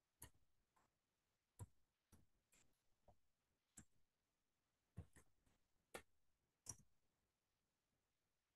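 Near silence broken by about a dozen faint, irregular clicks from computer input.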